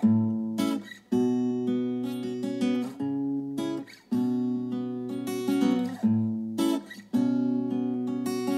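Instrumental passage of a recorded song: acoustic guitar strumming chords in phrases of about three seconds, each one stopped short before the next begins.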